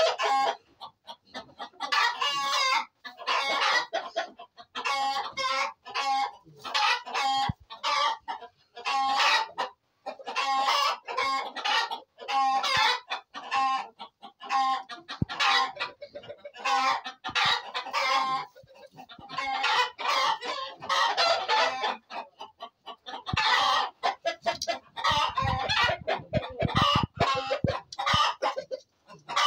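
Domestic chickens clucking and calling over one another in quick repeated calls, with roosters crowing among them. A run of low thumps comes near the end.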